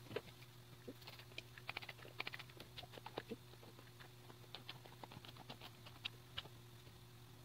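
Faint scattered clicks and rustles of an 18-inch doll and its long hair being handled and set in place, with a low steady hum underneath; the last two clicks, about six seconds in, are the loudest.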